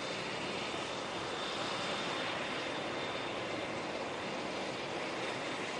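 Helicopter turbine engines running steadily on the ground: an even rushing noise with a thin, steady high whine over it.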